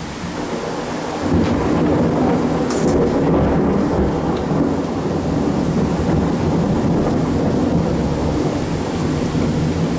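Thunder rumbling over heavy rain: a long low roll that swells about a second in and carries on under the steady rain hiss.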